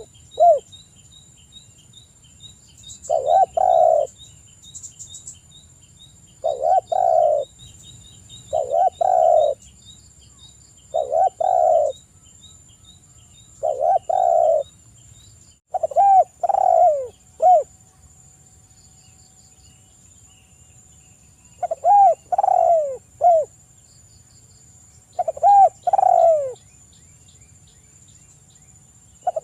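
Spotted dove (tekukur) cooing in its three-note 'kuk 3' style, the phrase repeated every two to three seconds with a pause of a few seconds after the middle. Faint high chirping from small birds or insects runs beneath it.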